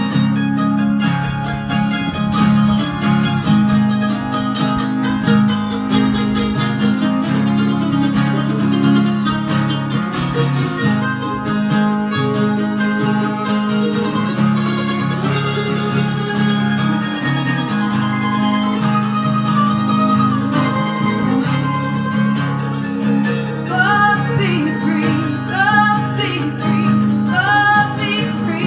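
Live acoustic string band: strummed acoustic guitar, mandolin and bowed fiddle playing an instrumental passage, with a woman's singing voice coming in again a few seconds before the end.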